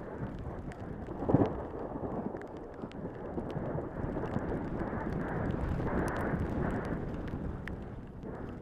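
Downhill mountain bike running fast down a dirt trail: wind rushing over the helmet-camera microphone, with the bike rattling and clicking over the rough ground. A heavy thump about a second and a half in, as the bike hits a bump.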